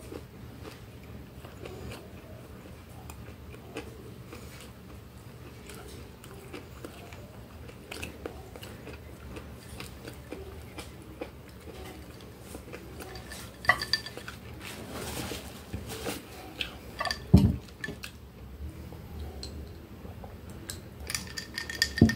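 Close-up eating sounds: quiet chewing and small clicks of cutlery and glass against a glass plate over a low steady hum, with a sharper knock about seventeen seconds in.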